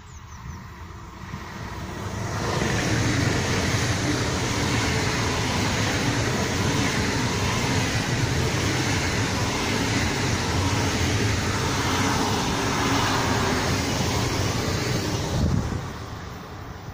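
An ICE high-speed electric train passes close by at speed. The steady rush of wheels on rail and air builds over the first two seconds, holds loud, and then cuts off abruptly near the end, leaving a fainter rumble with wind on the microphone.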